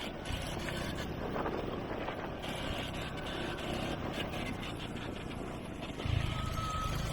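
A vehicle engine running while on the move, with wind noise on the microphone; the low rumble gets louder about six seconds in.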